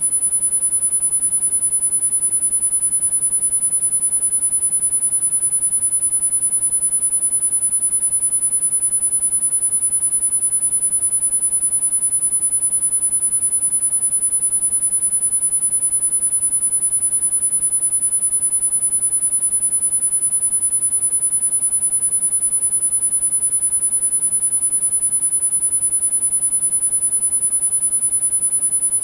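A synthesized pure sine tone, very high-pitched and held perfectly steady: a tinnitus masking tone for sound therapy.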